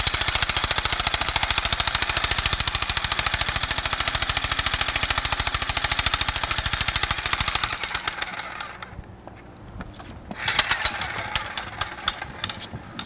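Jackhammer running in rapid, even hammering strokes for about eight seconds, then trailing off. A second, shorter burst starts about ten seconds in.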